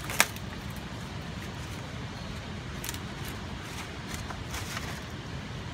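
Wild boar feeding among paper and plastic litter: a sharp click just after the start, then several fainter short crunches and crinkles, over a steady low rumble like distant road traffic.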